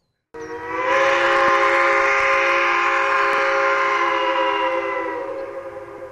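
A train horn blowing one long, chord-like blast. It starts suddenly, holds steady, then slowly fades.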